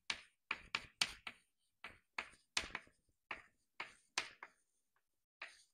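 Chalk writing on a blackboard: a quick run of short taps and scratches as each stroke of the figures is written, about three a second, with a pause of about a second near the end.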